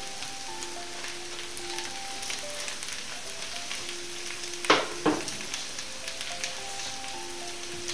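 Sliced boiled potatoes and onions frying in a pan: a steady sizzle with crackling. Two sharp knocks come about halfway through.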